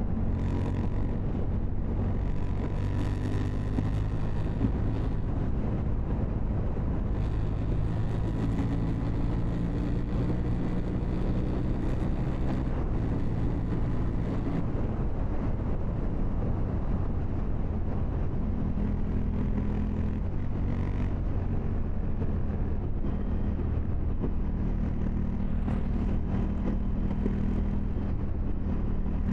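KTM 790 Duke's parallel-twin engine running steadily, its note holding level and stepping to a different pitch several times.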